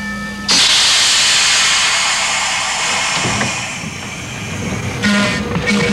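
Electric trolley car's air whistle ending shortly after the start, then a loud hiss of released air that fades over about three seconds. A second steady whistle tone at the same pitch comes in about five seconds in.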